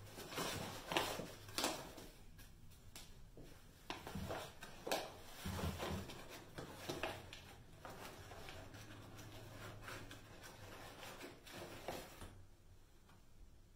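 Paper flour bag rustling and crinkling as flour is scooped out of it with a measuring cup, with irregular scrapes and light knocks; it dies down about twelve seconds in.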